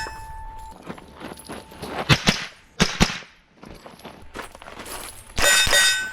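Rapid rimfire rifle shots, about four in quick pairs in the middle, with steel target plates ringing when hit. Near the end a struck plate rings out clearly.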